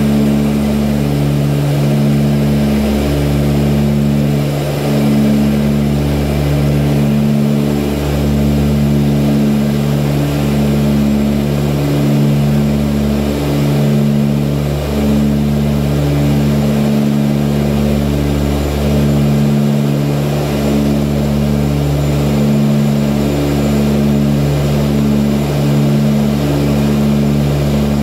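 Cabin noise of an Ilyushin Il-18D's Ivchenko AI-20M turboprop engines and propellers in flight: a loud, steady low drone made of several tones, throbbing with a slow, uneven pulse every second or two.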